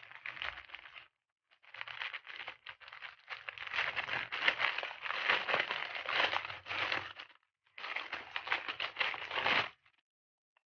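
Thin plastic courier mailer bag crinkling and rustling in the hands as it is cut and torn open, in three stretches of handling, the longest and loudest in the middle, stopping about a second before the end.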